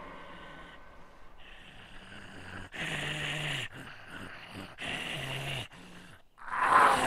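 Two guttural, snarling growls from a man voicing a monster, each about a second long and falling in pitch, then a louder harsh cry near the end.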